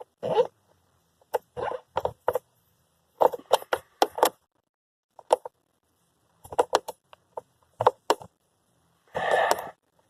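Hand tool clicking and metal clinking in short irregular bursts while a bolt on the blower motor is run in by hand, with a brief rustle near the end.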